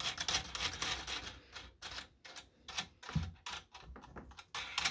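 Plastic bubble wrap crinkling and rustling under handling hands, dense at first and then breaking into a run of separate sharp clicks and crackles.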